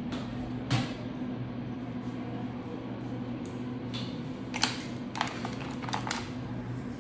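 Metal dental hand instruments clicking and clinking a few times: once about a second in, then several in quick succession later on. A steady low hum runs underneath.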